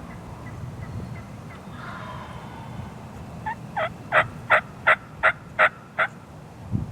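Wild turkey hen yelping: a series of about eight evenly spaced yelps, roughly three a second, starting about halfway through and getting louder toward the middle of the run.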